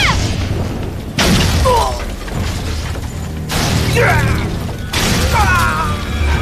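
Wooden lattice doors and windows being smashed in, with three sudden crashes, over dramatic film music.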